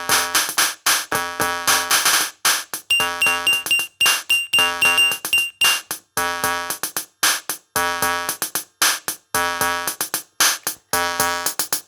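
Instrumental backing music: synthesizer keyboard chords played in short, choppy repeated stabs over a drum-machine beat.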